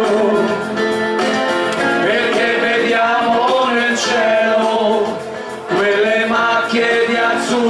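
A small mixed group of amateur men and women singing a song together through microphones and a PA, with arranger-keyboard accompaniment. The singing dips briefly between phrases a little over halfway through.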